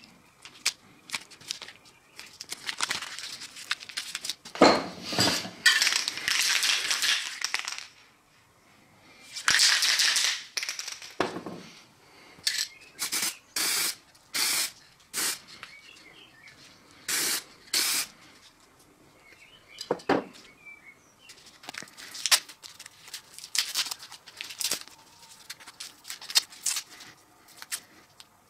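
Aerosol spray can hissing in two long sprays of a few seconds each, with a knock during the first, then a run of about eight short spurts. Near the end come light clicks and rustling of masking tape being handled.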